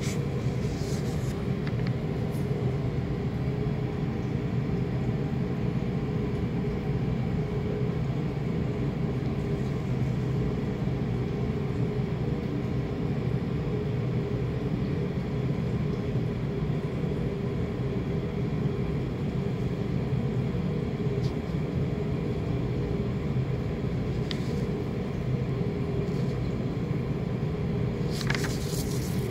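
A steady low mechanical hum and rumble with faint steady tones in it. Brief rustles of paper sheets being handled come about a second in and again near the end.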